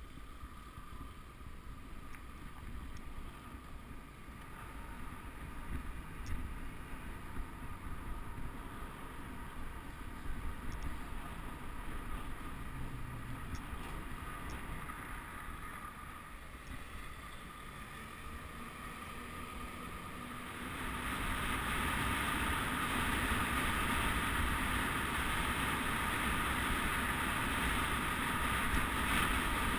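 Wind rushing over a moving camera's microphone with the low rumble of tyres on the road, steady at first and growing louder and hissier about two-thirds of the way through as the ride speeds up.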